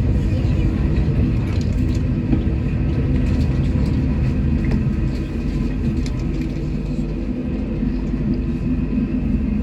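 Canal tour boat's engine running steadily with a low hum, heard from inside the enclosed passenger cabin.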